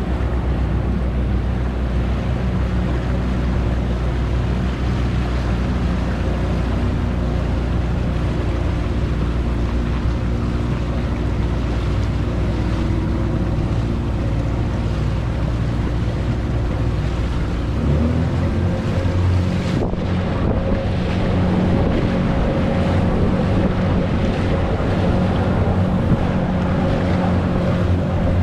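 Small motorboat running under way: a steady engine hum with water rushing past the hull and wind buffeting the microphone. About eighteen seconds in the engine note rises and the sound gets a little louder as the boat speeds up.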